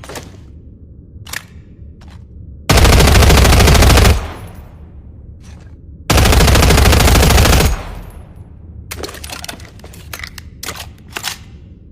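K&W MP6 submachine gun firing two long full-auto bursts of about a second and a half each, a few seconds apart. Short, sharp mechanical clicks and clacks come before, between and after the bursts.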